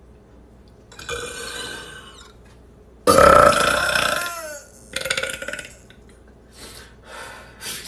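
A man belching: one long, loud belch about three seconds in whose pitch slides down, followed by a shorter rattling burp and a few weaker sounds near the end.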